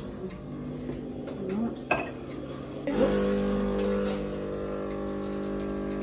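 Sunbeam Barista Max espresso machine starting a shot: a click at the start and another about two seconds in, then about three seconds in the pump comes on with a louder steady hum as water is pushed through the coffee into the cup.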